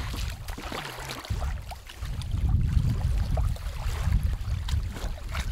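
Wind buffeting the microphone as a gusty, uneven rumble that eases briefly about a second in, with light splashing of shallow water at the lake's edge.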